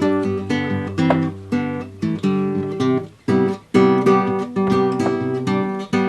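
Acoustic guitar theme music, chords played at a steady pace, with a short break a little after three seconds in.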